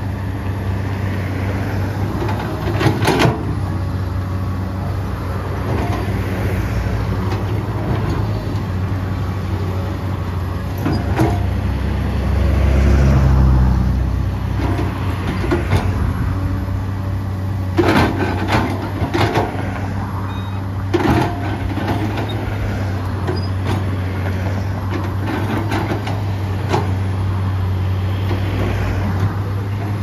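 Komatsu PC200-8M0 hydraulic excavator's diesel engine running steadily, swelling under load about halfway through. Sharp knocks and clanks come from the machine at work, several of them clustered in the second half.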